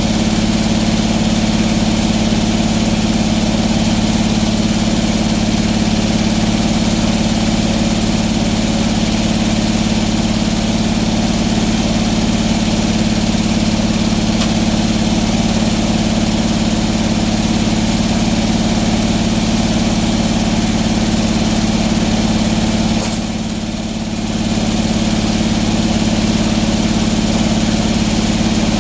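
An engine running steadily at a constant speed, with a brief dip in level about 23 seconds in.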